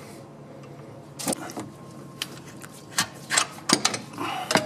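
Hand tools clinking and knocking on metal as the alternator's mounting bolts are worked loose: a few scattered clicks, coming thicker toward the end.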